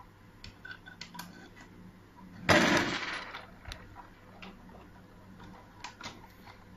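Metal parts of a mechanical pushbutton door lock being handled and fitted: scattered small clicks and taps, with one louder clatter lasting about half a second about two and a half seconds in.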